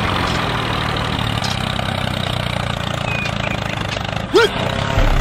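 Small motor of a DIY mini toy tractor running steadily. About four seconds in there is a short squeaky chirp that rises and falls.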